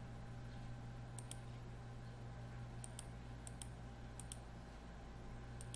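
Computer mouse button clicks: about five pairs of quick, sharp clicks spread over a few seconds, over a steady low hum.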